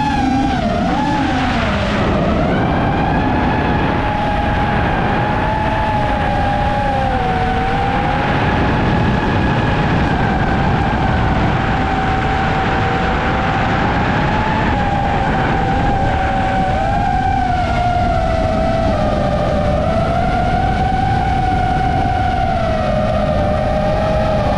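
iFlight Nazgul 6 FPV quadcopter's motors and propellers whining in flight, the pitch drifting up and down as the throttle changes, over a steady rushing noise.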